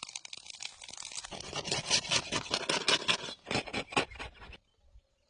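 Dense crackling, scraping noise with many quick clicks, cutting off suddenly about four and a half seconds in.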